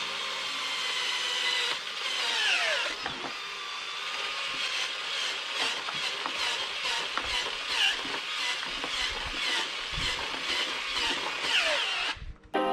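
Cordless drill turning an auger bit into heavy clay soil. Its whine falls in pitch several times as the bit bites and the motor is loaded.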